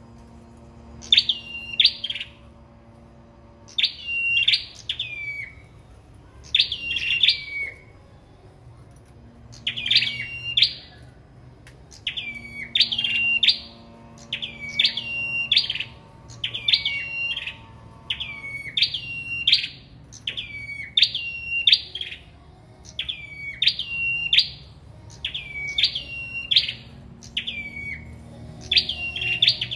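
Caged sâu đầu đỏ songbirds singing against each other in contest. Short, high chirped phrases that drop in pitch come one after another, about every one and a half to two seconds.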